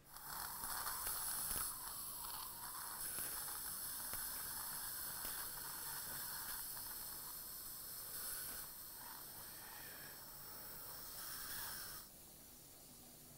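Surgical suction tip hissing steadily as it draws fluid from the socket, starting abruptly and cutting off after about twelve seconds.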